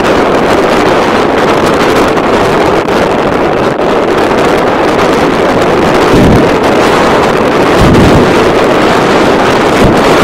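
Strong wind buffeting the camera microphone: a loud, steady rushing, with heavier low gusts about six and eight seconds in.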